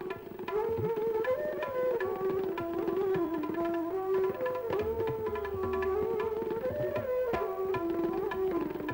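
Indian classical-style music: a sliding, ornamented melody line over tabla drumming.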